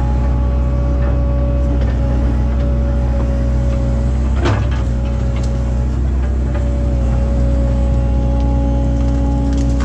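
Link-Belt excavator's diesel engine running steadily with a steady high whine over it, and a single knock about four and a half seconds in.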